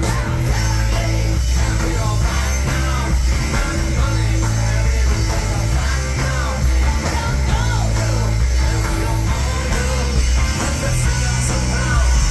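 Live rock band playing loudly through a festival PA, heard from within the crowd: electric guitar with strong bass and a man singing.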